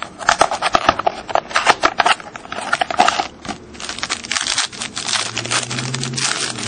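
Crinkling and crackling of a trading-card pack wrapper being torn open and handled, with dense crackles for the first few seconds and quieter rustling after.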